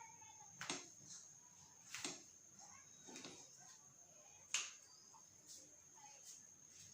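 Head massage sounds: a handful of sharp clicks and taps, irregularly spaced, the loudest about four and a half seconds in, over a faint steady high-pitched whine.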